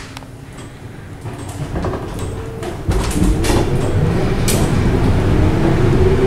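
Berlin U-Bahn A3L 71 car pulling away, heard from inside the car: the running noise starts low and grows louder as it gains speed. A whine rises in pitch through the second half, with a few sharp clicks from the running gear.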